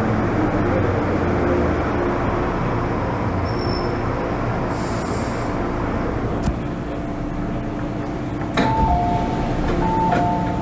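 MTR M-train electric multiple unit running in the passenger cabin: steady rumble with motor hum that eases off as the train slows. Near the end there is a knock, then a two-note electronic chime sounds twice.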